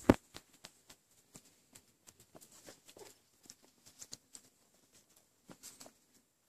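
Wire-haired miniature dachshund puppies and adult dogs moving about on a rug: scattered soft, irregular taps and clicks of paws, claws and mouths, with one loud knock right at the start.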